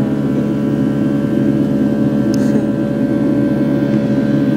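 Airliner engine noise heard inside the passenger cabin: a loud, steady drone with several steady humming tones over a rushing noise. The passenger calls it abnormally noisy, sounding like a propeller plane.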